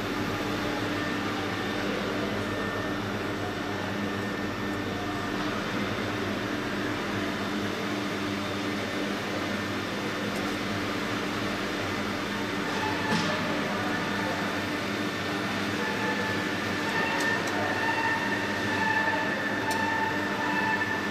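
Steady mechanical hum of running machinery, with a few light clicks; a higher tone joins about two-thirds of the way through.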